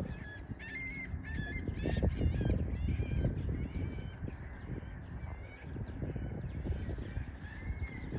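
Water birds calling: a rapid series of short, harsh honking calls, about two a second, strongest in the first few seconds and again near the end, over a steady low rumble.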